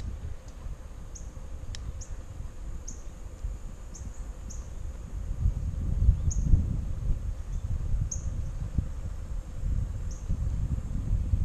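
Wind buffeting the microphone with a low rumble while riding a bicycle on a paved road, swelling around the middle. Short high chirps come through every second or so at irregular spacing.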